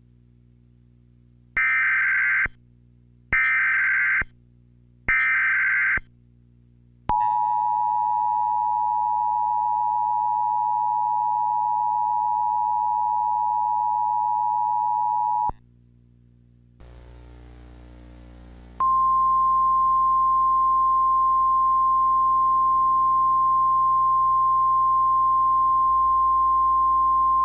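Emergency Alert System signal: three roughly one-second data bursts of the digital alert header, then the steady two-tone EAS attention signal held for about eight seconds. After a short break, a single steady NOAA Weather Radio warning alarm tone starts about nineteen seconds in and holds for about ten seconds, announcing a tornado warning.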